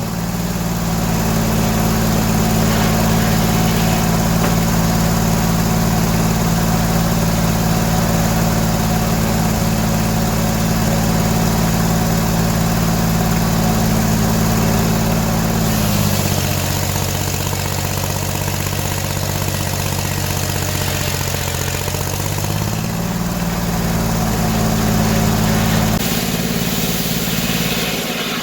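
Gasoline engine powering a circular sawmill, running steadily. Its speed steps up just after the start, drops about halfway through, picks up again, then drops near the end.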